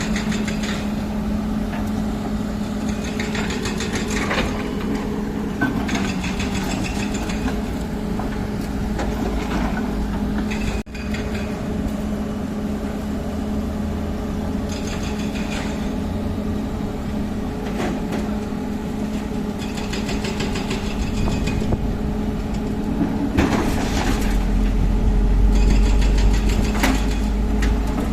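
Heavy diesel engines of an excavator and dump truck running steadily, with recurring bursts of higher-pitched hiss and clatter every couple of seconds as the machine works. A brief break comes about 11 s in, and a deeper engine rumble swells near the end.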